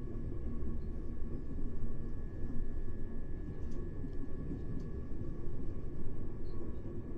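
Class 377 Electrostar electric multiple unit running, heard from inside the carriage: a steady low rumble of wheels on track with a faint steady hum above it.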